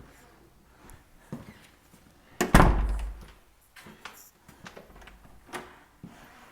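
An interior door shutting with a heavy thunk about two and a half seconds in, with a few lighter knocks and clicks around it.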